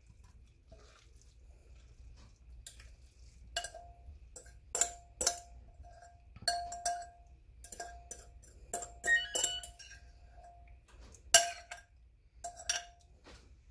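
A metal fork scraping and clinking against glass as a zucchini mixture is scooped from a glass bowl into a glass baking dish: about a dozen irregular sharp clinks, each with a short ringing tone.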